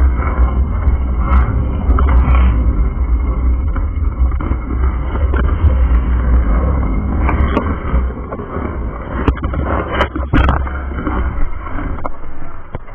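Wind rumbling on the microphone of a moving bicycle, with tyre noise rolling over cracked concrete and a few sharp knocks from bumps. The rumble eases near the end as the bike slows.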